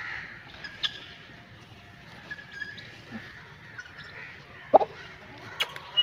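Outdoor yard ambience with birds calling faintly in the background, a few small clicks, and one short loud knock about three-quarters of the way through.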